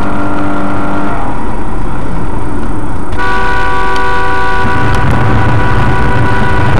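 Car horn sounding for about a second, then a long steady horn blast from about three seconds in, over a constant low rumble of engine and road noise.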